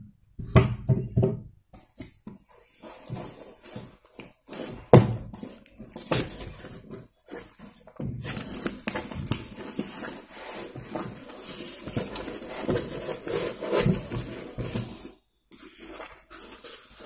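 Hands opening a corrugated cardboard carton: flaps pulled back, with cardboard rustling and scraping and scattered knocks and taps. From about eight seconds in, a longer run of scraping and rustling.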